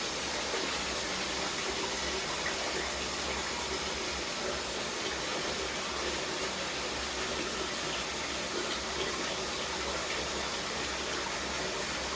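Water running steadily from a bathroom tap.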